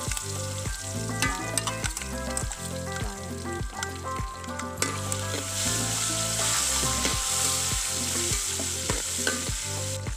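Ripe banana pieces sizzling as they fry in hot ghee in a metal pot, with a steel ladle scraping and clinking against the pot as it stirs them.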